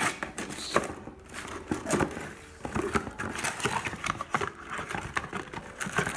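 Cardboard box being handled and opened: flaps scraping and knocking, with plastic wrapping crinkling as a hand reaches in for a bagged air filter. Irregular clicks and rustles with no steady rhythm.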